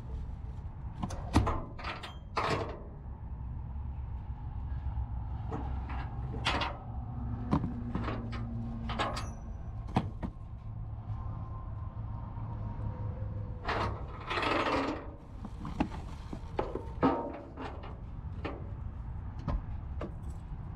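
Ratchet straps being unhooked and pulled off a plastic-wrapped load on a metal trailer deck: scattered clinks and knocks of the strap hooks and ratchets, with a longer rushing noise about two-thirds of the way through. A low steady rumble runs underneath.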